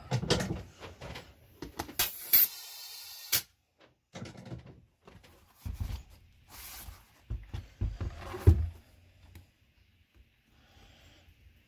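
Hands-on handling of a small pneumatic wheel and tools: scattered knocks, clicks and scrapes. A short hiss comes about two seconds in, and a heavy thump about eight and a half seconds in.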